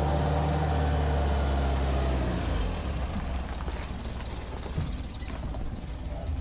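Pinzgauer off-road truck's engine running as the truck drives slowly past and pulls away. The sound drops noticeably after about two and a half seconds as it moves off.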